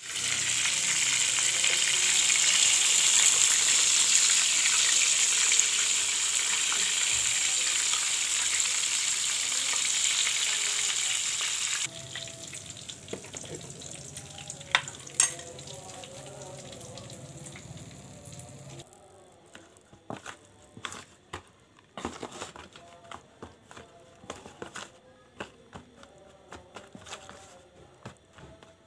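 Flour-coated chicken pieces deep-frying in hot oil in a pan, a loud steady sizzle. About twelve seconds in it cuts off suddenly to much quieter handling sounds: a low hum with two sharp clicks, then scattered soft taps and rustles as a hand works chicken pieces through flour in a plastic tray.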